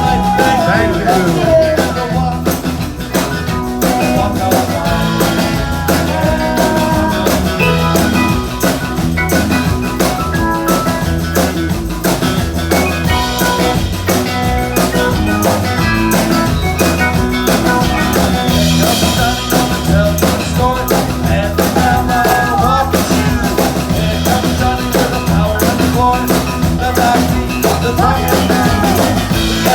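Live band playing rock-and-roll dance music, with a drum kit keeping a steady beat.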